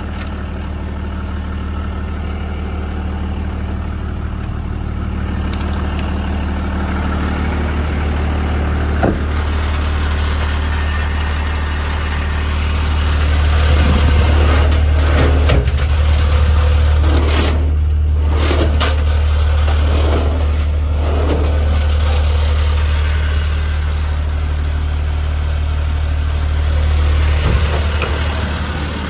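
Cummins 6.7-litre inline-six diesel idling steadily with a deep, even hum. A few short irregular noises cut in around the middle.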